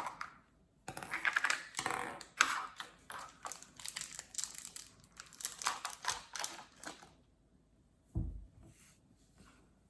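Plastic packaging being handled, crinkling and crackling in quick clicky rustles for about six seconds, then a single low thump.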